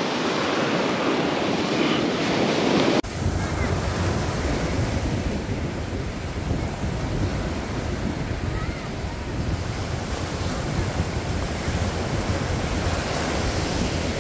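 Ocean surf breaking and washing up the beach, with wind buffeting the microphone. About three seconds in the sound cuts abruptly and the low wind rumble becomes heavier.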